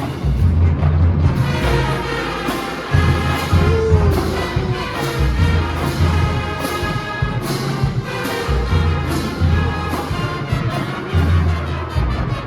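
Marching band playing a parade tune: brass horns over marching drums and deep bass notes. The horns come in about a second in over the drumming.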